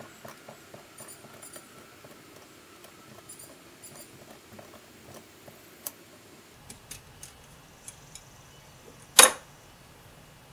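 Spiral metal armour of a flexible electrical cable clicking and rattling in the hands as it is worked with snips at a vise, with one sharp snip about nine seconds in.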